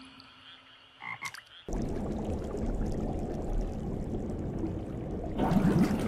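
A single water drop plinks, then a low underwater rumble with gurgling bubbles starts suddenly just under two seconds in and swells near the end: a body sinking through deep water.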